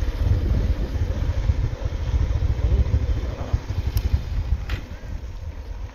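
Motorcycle ride with the engine running and wind rumbling on the microphone; the noise eases over the last couple of seconds.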